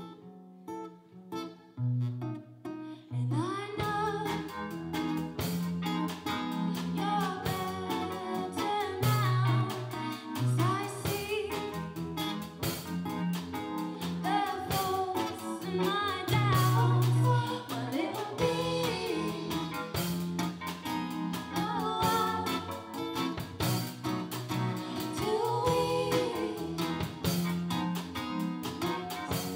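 Live band playing a song with acoustic guitar, keyboard, bass notes and drums. For the first few seconds only held chords and guitar play. About four seconds in the drums come in and a female lead voice sings over the band.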